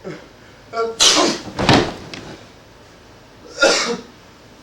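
A man's sharp sneeze about a second in, followed at once by a heavy thump or slam. Another short vocal burst comes near the end.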